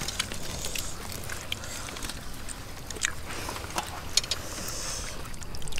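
Soft rustles of lettuce leaves and small scattered clicks of food being handled and eaten, over a low, steady background rumble.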